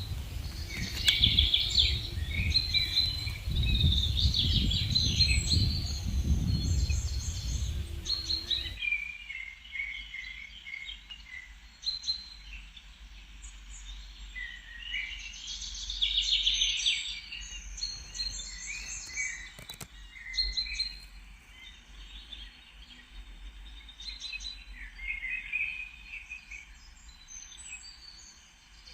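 Several songbirds singing and chirping in a spring forest, with many short, overlapping phrases. A low rumble of wind on the microphone sits under the birdsong for the first nine seconds or so and stops abruptly.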